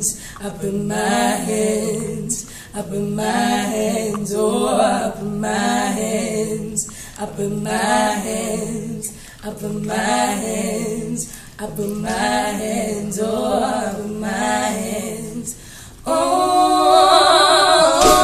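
Two women singing a cappella in harmony: a low voice carries a repeating line under a higher voice whose short phrases recur about every two seconds. About sixteen seconds in, the singing gets louder on long held notes.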